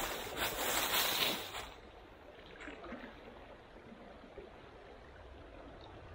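A stream running steadily, with a loud rush of noise for about the first second and a half before it settles back to the steady flow.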